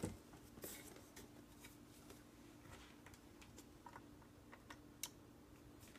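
Near silence with a few faint clicks and taps from a plastic-cased handheld diagnostic tool being picked up and turned over in the hand, the sharpest click about five seconds in.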